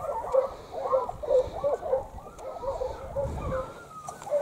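A pack of foxhounds baying, many voices crying at once in short, overlapping yelps.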